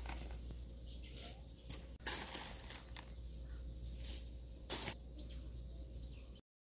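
Puffed rice and other dry toppings spooned onto a bowl of yogurt: several short, light crunchy rustles as the grains land and the spoon scrapes.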